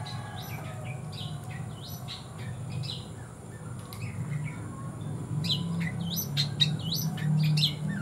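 Small birds chirping: many short, high, falling chirps repeated throughout, livelier in the second half, over a low steady hum that grows louder in the second half.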